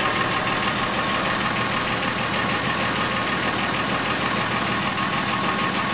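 120-horsepower Ford Lehman six-cylinder marine diesel running steadily at idle, heard through the open engine hatch, with a fast even clatter.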